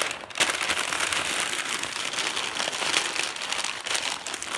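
Newspaper crinkling and rustling continuously as a large sheet is folded and wrapped around balls of crumpled paper.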